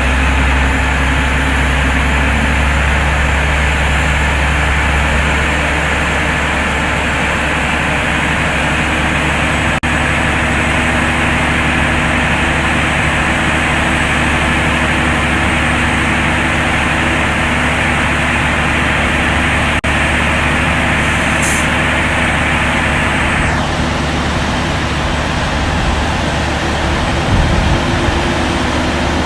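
Heavy diesel engine of a mobile crane running steadily with a deep hum. A broad hiss runs over it and cuts off suddenly about three-quarters of the way through.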